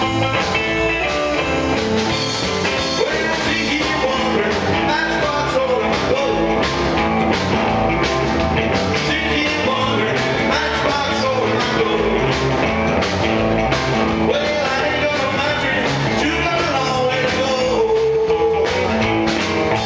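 Live rock and roll band playing loud and steady: a male singer sings into a microphone over electric guitars and a drum kit.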